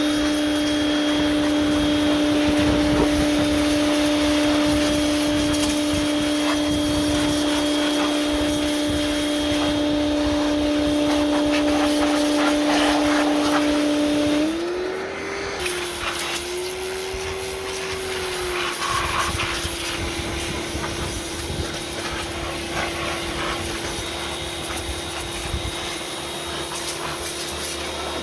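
Pressure washer running with the hiss of its spray against the greasy car frame, over a steady motor hum. About halfway through, the hum's pitch steps up and the sound gets quieter.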